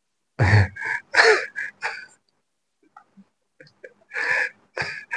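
A man's voice making short, breathy vocal sounds with no clear words, in a quick run of bursts over the first couple of seconds and another run near the end.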